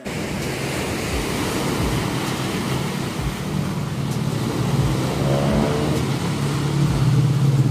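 Small waves washing onto the rocks along a seawall, with wind on the microphone. About halfway through, a low engine hum comes in and grows louder.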